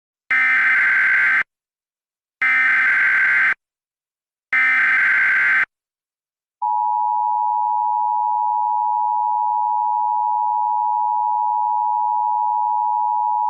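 Emergency Alert System broadcast: three screeching digital header bursts (the SAME data code) of about a second each, a second apart. About a second later comes the steady, piercing attention tone, which announces the alert that follows.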